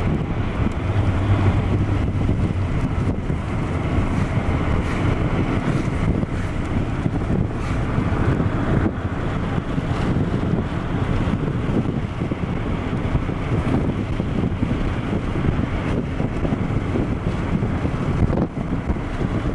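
Steady road noise inside a car cruising at highway speed: an even rush of tyre and wind noise over a low drone, with a low hum stronger in the first couple of seconds.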